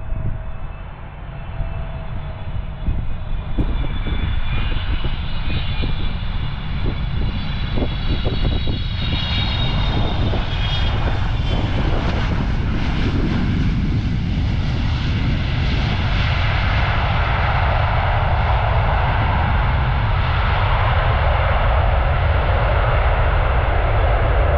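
Boeing 777 freighter's twin GE90 turbofans landing: a jet whine of several high tones that swells as the aircraft comes in over the field, turning into a broader, louder roar after touchdown as it rolls down the runway. A steady low rumble, wind on the microphone, runs beneath.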